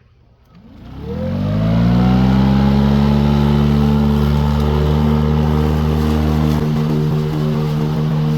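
Toro 60V Flex-Force cordless mower's electric motor and high-lift bagging blade spinning up from rest. A rising whine settles within about a second and a half into a loud, steady hum, and the low end of the hum shifts about six and a half seconds in.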